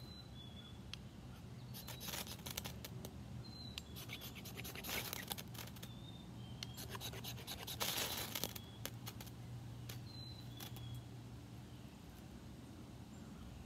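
Ferrocerium rod scraped with the spine of a Mora Classic carbon-steel knife, a few runs of rasping strokes with the longest and loudest about two thirds of the way through. The modified spine strikes the rod poorly, and the sparks fail to light the damp shavings.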